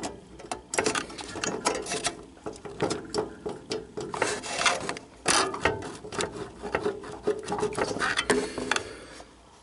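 Irregular small clicks and rattles of hand handling under an amplifier's circuit board. A finger wiggles a loose wire lead in its hole at a bad solder joint.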